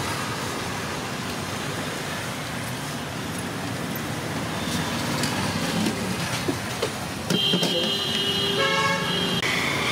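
Steady city road traffic running past, with a vehicle horn sounding for about two seconds near the end.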